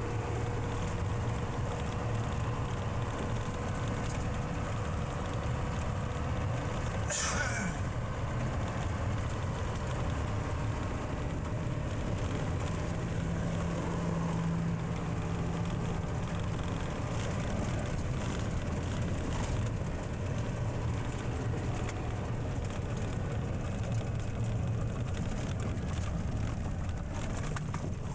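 Truck engine droning steadily with road rumble, heard from inside the moving cab. About seven seconds in comes one short, sharp hiss.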